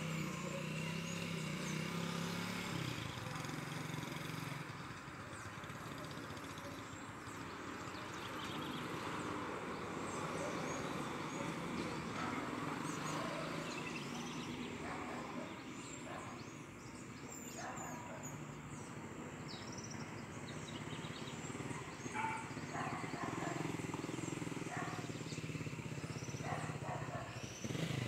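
Outdoor background noise: a steady low engine hum, stronger at the start and again at the end, with short high chirps scattered through.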